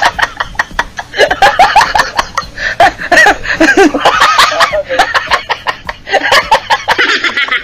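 Laughter from several voices laughing at once in short, bobbing bursts, a reaction to a joke's punchline.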